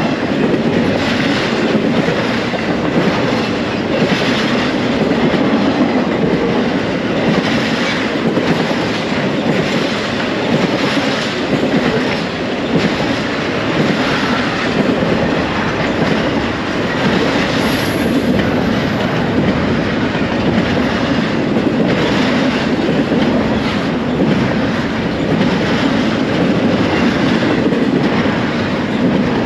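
Intermodal freight train of double-stack container cars and trailer-carrying flatcars rolling past close by. The steady rumble of its wheels is broken by clacking over the rail joints about once a second. A brief high wheel squeal comes a little past halfway.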